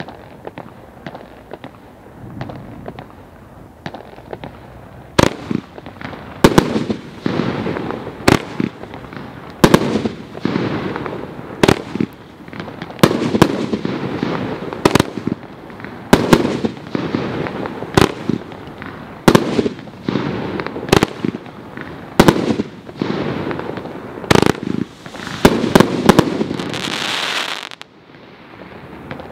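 24-shot consumer firework battery (about 30 mm calibre) firing: faint pops for the first few seconds, then sharp bursts about every one to two seconds, with crackling from the strobing stars between them. It ends in a loud hissing final salvo that cuts off suddenly near the end.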